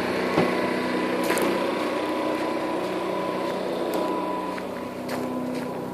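A steady motor hum at a constant pitch, over a light hiss with a few faint clicks.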